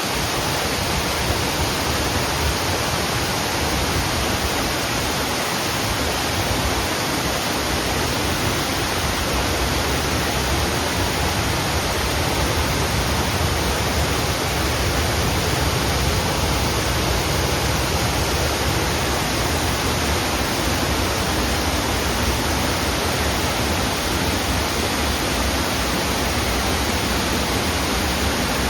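Running water rushing in a steady, unbroken hiss, even in level throughout with no separate splashes or drips.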